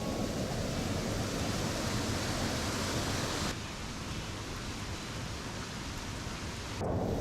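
Steady rushing outdoor noise, like rain, running water or wind. It drops in level and changes character abruptly about three and a half seconds in, then jumps back up near the end.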